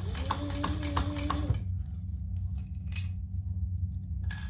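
Sewing machine stitching slowly through thick quilted layers for about a second and a half. The motor whine rises, holds and falls away as it stops, with a stitch tick about four times a second. A steady low hum carries on underneath, with a few light clicks as the fabric is handled.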